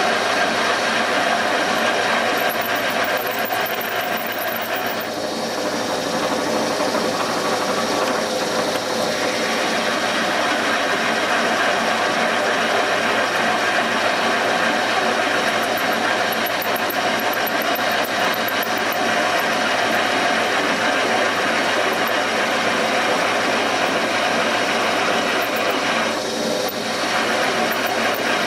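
Seat-and-guide machine running steadily as a high-speed steel drill bit bores out a broken intake manifold bolt in a cast iron Ford 302 cylinder head. The cutting noise turns briefly softer three times, around five and eight seconds in and near the end.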